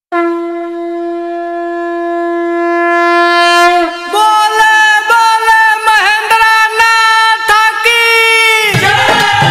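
Song intro led by a reedy wind instrument: it holds one long note for about four seconds, then plays an ornamented melody with pitch bends. Drums and bass come in near the end.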